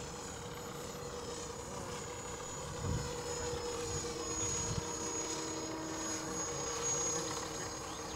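Magnus-effect RC plane's small motor and propeller running steadily in flight: a steady whine that wavers slightly in pitch.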